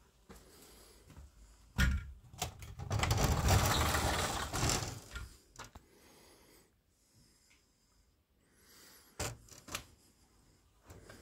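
A wooden outbuilding door being opened: a thump about two seconds in, then about two seconds of scraping and rattling, with a couple of sharp clicks near the end.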